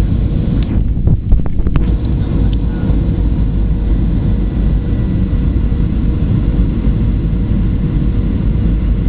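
Steady cabin roar inside a Boeing 737-800 on approach: engine and airflow noise, heavy in the lows, with a faint steady hum over it. A few brief knocks and clicks come in the first few seconds.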